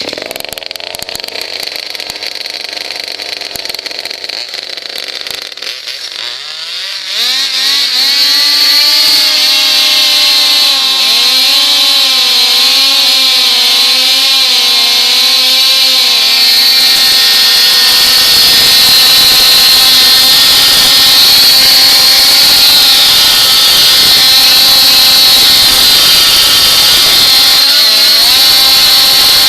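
RC car's motor spinning its wheels in a burnout. It rises in pitch about seven seconds in, then holds a loud, slightly wavering high-revving run.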